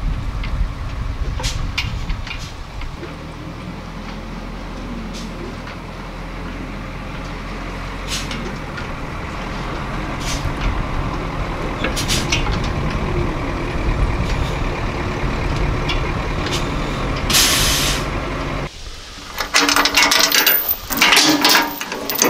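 GMC C7000 dump truck's 8.2-liter Detroit Diesel running as the truck drives up, growing gradually louder, with a short air-brake hiss as it stops. About 19 seconds in, the sound changes abruptly to crackling and rustling of pine branches being handled at the tailgate.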